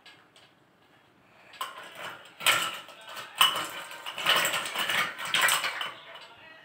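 Ladle stirring and scooping ice cubes in a glass jug: a rapid run of clinking and clattering of ice against glass and metal, starting about a second and a half in.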